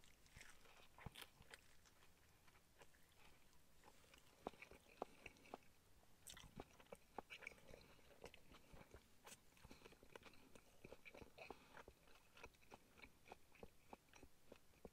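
Faint chewing of a mouthful of steak sandwich: soft scattered mouth clicks and small crunches over near silence, a few a little louder in the middle.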